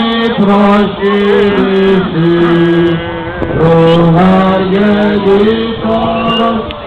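A man chanting in long held notes, stepping between a few pitches, with short breaks between phrases.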